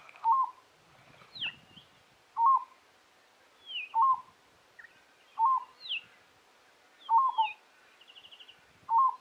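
Peaceful dove calling: a short, quick coo phrase repeated six times, about every one and a half seconds. Thin, high, downward-sliding whistles from another bird come between the coos.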